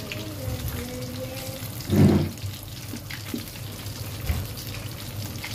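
Chicken pieces frying in a pan of hot oil: a steady sizzle with small scattered pops. About two seconds in comes one short, loud, low thud.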